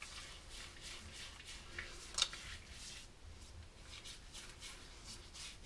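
Faint wet rubbing of hands working soapy water over the face as a pre-shave, with one small click a little over two seconds in.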